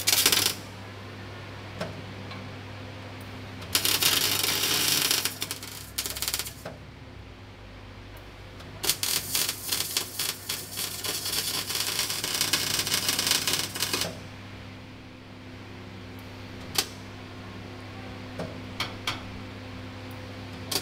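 Arc welding steel flat bar to the hull: crackling, sizzling welding runs, a short one at the very start, one from about 4 to 6.5 seconds in and a longer one from about 9 to 14 seconds, over a steady low hum.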